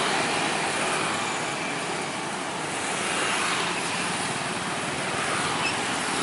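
Road traffic noise: a Mercedes-Benz intercity bus driving away with motorcycles riding alongside, a steady rushing din without distinct engine notes or horn blasts.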